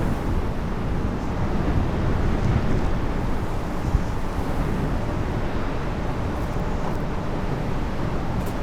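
Strong wind buffeting a camera microphone: a steady low rumbling noise.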